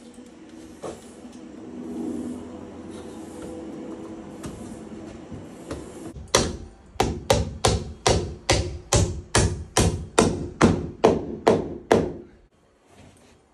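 A hammer striking wood, about fifteen sharp, evenly paced blows at roughly three a second that start about six seconds in and stop near the end, after a few scattered faint knocks.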